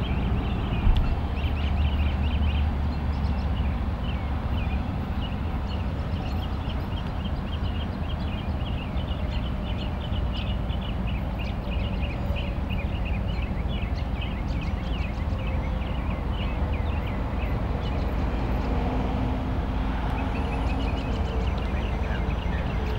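Many birds chirping over a steady low rumble from a distant approaching diesel locomotive.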